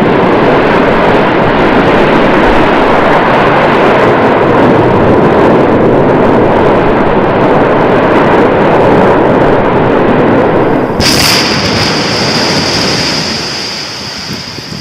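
Volcanic eruption: a loud, dense, continuous rumbling noise. About eleven seconds in, a high steady hiss joins it and the rumble begins to fade.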